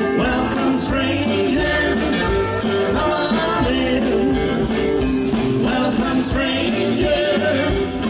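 Live country band playing an instrumental passage with no vocals: drum kit, acoustic and electric guitars and keyboard, with a hand shaker keeping an even rhythm on top.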